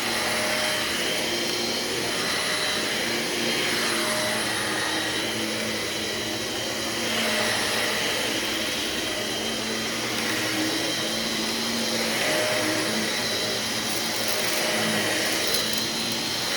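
Bagless upright vacuum cleaner running steadily, its motor note wavering slightly as it works.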